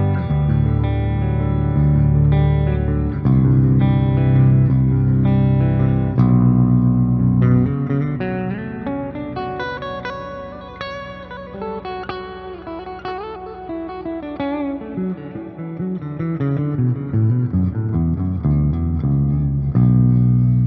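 Ibanez Axion Label RGD71ALMS seven-string electric guitar with Fluence Modern Ceramic pickups, played through an amp simulator. Low sustained chords ring for the first several seconds, then comes a run of higher single notes with bends and vibrato, and lower notes return near the end.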